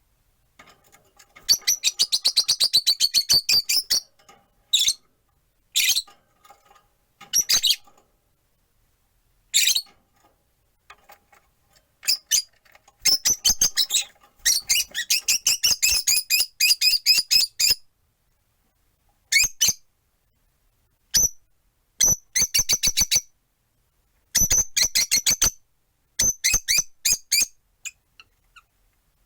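Rosy-faced lovebirds calling: rapid runs of shrill, high-pitched chirps, several seconds at a time, broken by short pauses and single calls.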